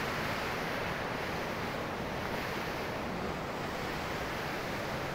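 Glacial meltwater river rushing over stones, a steady, even noise.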